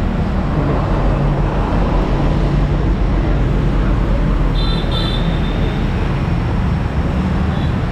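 Steady street traffic: motorbikes and other vehicles running past close by. A short, high double beep sounds about halfway through.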